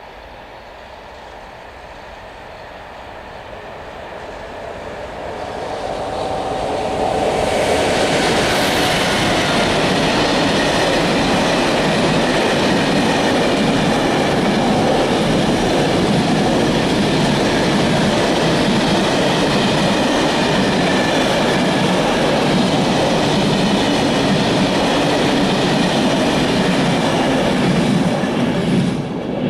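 A Mercitalia Rail E494 electric locomotive approaches with a container freight train, growing louder over the first seven seconds. The train then passes close by for about twenty seconds, its wagons' wheels clattering rhythmically over the rail joints. The sound cuts off abruptly near the end.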